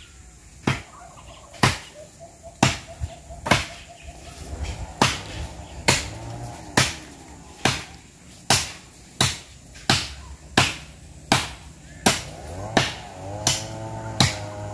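A blade hacking at a woody stem, about one to two chopping strokes a second. A faint wavering pitched sound runs behind it and grows stronger near the end.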